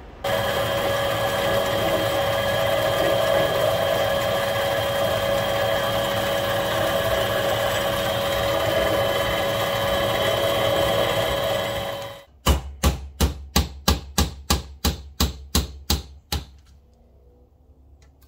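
Small metal lathe running steadily, turning down a knife pivot pin, then shutting off about twelve seconds in. It is followed by a run of about fourteen sharp, evenly spaced taps, about three a second.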